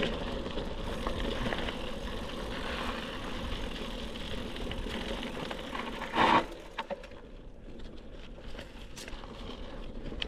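Wind and bicycle riding noise picked up by the GoPro Hero 12 Black's built-in microphones with wind reduction on: a steady rushing rumble, a short loud buffet about six seconds in, then quieter with scattered small clicks and rattles.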